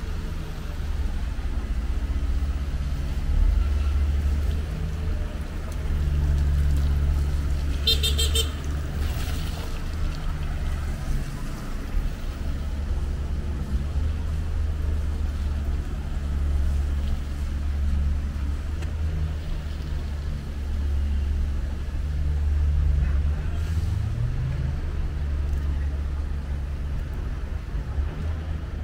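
Street traffic heard from a moving bicycle, under a steady low rumble. A short vehicle horn beeps about eight seconds in, and later an engine revs up briefly.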